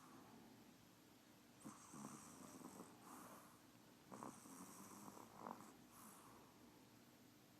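A sleeping Pomeranian snoring faintly, a few slow raspy breaths a couple of seconds apart, with small clicks.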